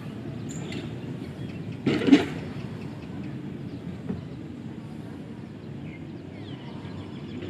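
Railway station background: a steady low rumble, with a sharp clank about two seconds in and a smaller knock a couple of seconds later, and faint bird chirps near the end.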